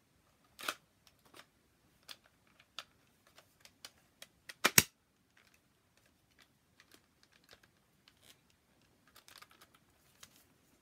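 Scattered plastic clicks and taps from a hard plastic toy foam blaster being handled and worked, with a sharp double click about halfway through that is the loudest, and a small cluster of light clicks near the end.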